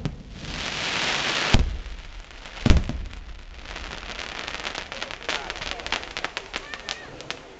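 Aerial firework shells bursting overhead. A hiss of sparks lasts about a second and a half, then comes a bang, a louder bang about a second later, and a run of rapid crackling pops as the stars burn out.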